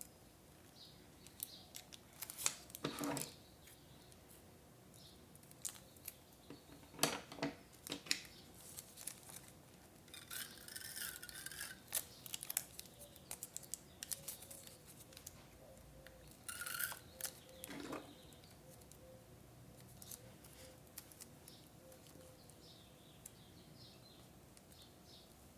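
Quiet paper-crafting sounds: scissors snipping and paper being handled, heard as scattered sharp clicks and a few brief rustles.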